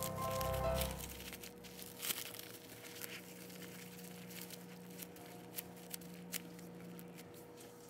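Plastic cling wrap crinkling and crackling faintly in small irregular ticks as it is pulled tight around a sandwich and pressed down by hand. Background music stops about a second in.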